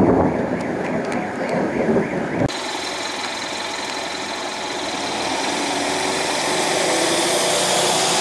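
Thunder rumbling that cuts off abruptly about two and a half seconds in. A steady hiss with a faint hum follows and grows slowly louder.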